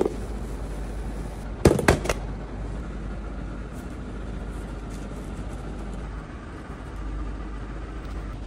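Steady low background rumble, with a short cluster of sharp knocks and clatter about two seconds in.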